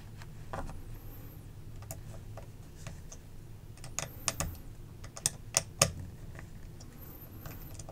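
Light, scattered clicks and ticks of a hand driver turning the pivot screw into a Spyderco Smock folding knife, with a quick run of clicks about four seconds in and a few more a second or so later.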